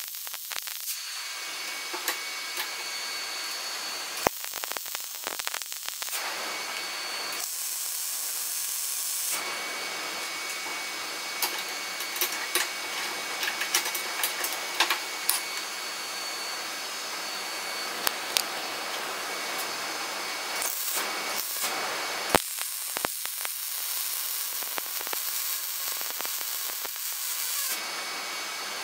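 Arc welding on steel plate in several runs: a steady crackling hiss that stops and starts a few times, with sharp clicks throughout.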